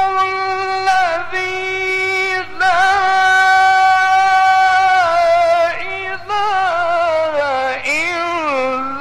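Male Qur'an reciter chanting in the ornamented mujawwad (tajweed) style in a single high voice. He holds long drawn-out notes with wavering turns and glides, with short breaks about one and two and a half seconds in.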